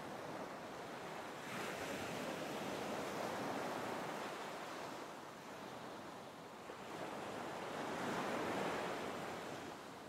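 Baltic Sea surf washing on the shore, mixed with wind: a steady rush that swells about a second and a half in, eases off midway and swells again near the end.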